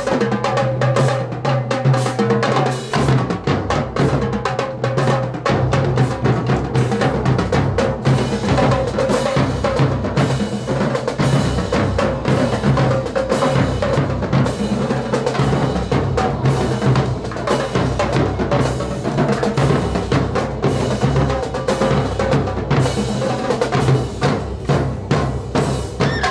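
Marching drumline playing together: snare drum, a set of tenor drums, marching bass drums and crash cymbals in fast, dense stick strokes over low bass drum tones.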